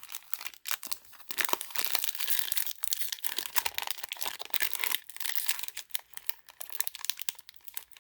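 Foil wrapper of a Magic: The Gathering Jumpstart booster pack being crinkled and torn open by hand, a dense run of crackling and ripping that keeps on throughout.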